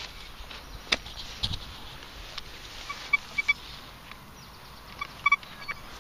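Thracian metal detector giving short target beeps as its coil is swept over the hole: three quick beeps about three seconds in and two more about five seconds in. A couple of sharp clicks come about a second in.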